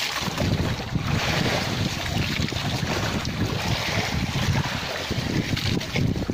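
Wind gusting across the microphone over open sea, with waves washing against a small outrigger boat's hull.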